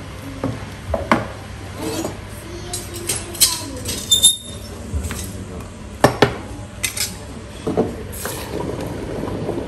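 Metal tongs clinking and knocking as red-hot stones are lifted from a charcoal brazier, a series of sharp clinks. About eight seconds in there is a brief hiss as a hot stone goes into the wooden tub of fish broth to bring it back to the boil (ishiyaki stone-boiling).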